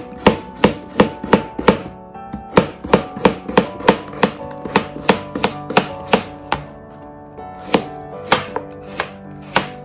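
Kitchen knife slicing a cucumber thinly on the diagonal: quick, even knife strokes knocking on the cutting board, about three a second, with two short pauses.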